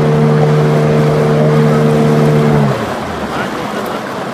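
A motorboat's engine running with a steady hum, which drops away suddenly about two and a half seconds in, leaving a quieter, even wash of water and engine noise.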